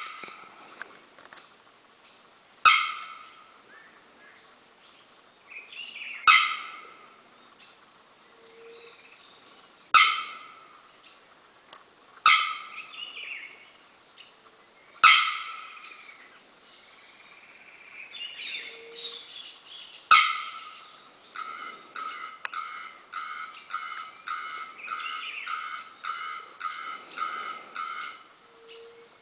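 Bearded bellbird calling: loud, sharp single 'bock' notes every few seconds, each fading quickly. About two-thirds of the way through it switches to an even series of about a dozen shorter ringing notes, nearly two a second. A steady high insect hum runs underneath.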